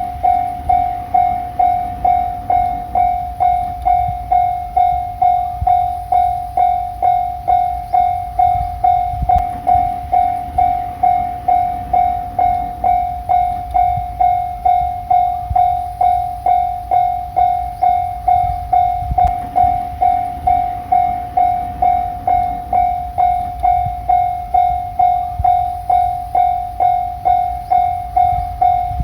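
Japanese level-crossing alarm ringing its electronic 'kan-kan' bell, a loud pulsed tone about twice a second, while a diesel limited express train passes with a low rumble and wheels clicking over the rail joints.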